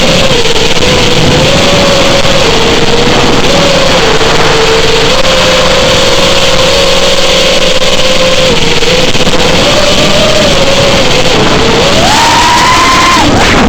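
FPV racing drone's brushless motors whining under loud wind rush. The pitch steps up and down with the throttle, then climbs sharply near the end.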